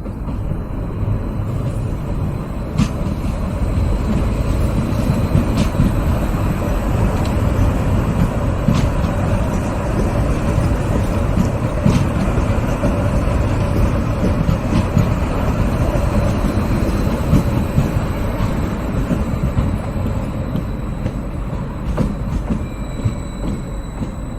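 Train passing slowly: a loud, continuous heavy rumble that builds over the first few seconds and eases slightly near the end, with sharp clacks about every three seconds.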